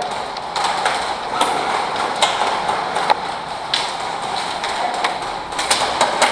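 Airsoft guns firing: scattered sharp clicks and cracks at irregular intervals over a steady background noise.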